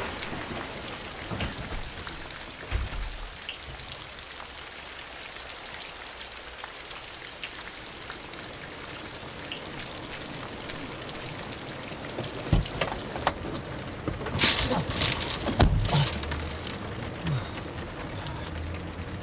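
Steady heavy rain falling, with a cluster of sharp knocks and thuds about two-thirds of the way through.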